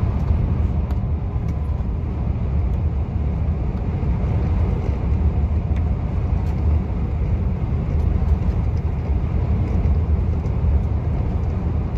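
Steady low rumble of a truck's engine and tyres heard from inside the cab while driving at a constant speed.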